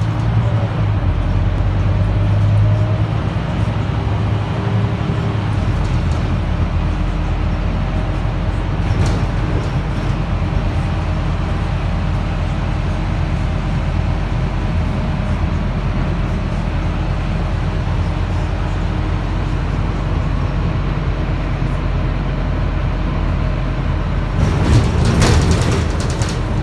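Cabin noise of a Scania K230UB4 city bus under way: its rear-mounted five-cylinder diesel engine running with a steady low hum over road noise. A brief louder burst of noise comes near the end.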